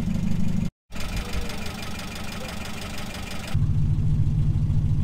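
Car engine running with a steady low rumble. It is broken by a brief dead gap just under a second in and changes abruptly in tone a few seconds later, like separate clips of engine sound cut together.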